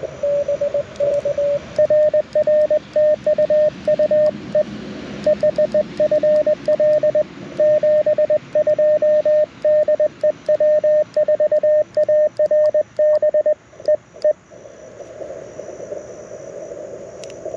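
Morse code: a single-pitch CW tone keyed in dots and dashes at a steady speed from a Mountain Topper MTR4B transceiver, played through a small portable speaker, with faint clicks from the paddle key. The code stops about fourteen seconds in, leaving only faint band hiss.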